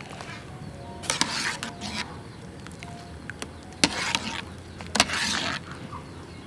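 A metal mesh strainer scooping in an aluminium pot of boiling water: several splashy pours as water drains out of the strainer back into the pot, the last two each starting with a sharp knock of the strainer against the pot.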